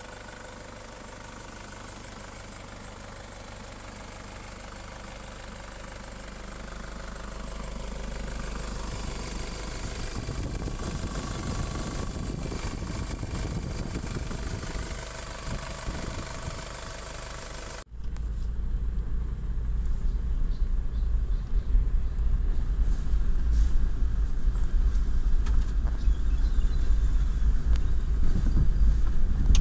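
Nissan Patrol GU's freshly reconditioned 3.0-litre ZD30 four-cylinder turbo-diesel idling steadily with the bonnet open. About eighteen seconds in, a sudden cut gives way to the vehicle driving, with a louder, rougher low rumble of engine and road.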